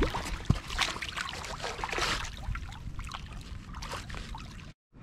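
Shallow stream water splashing and sloshing in short irregular bursts as a hooked brown trout thrashes at the surface and is grabbed by hand. The sound cuts off abruptly near the end.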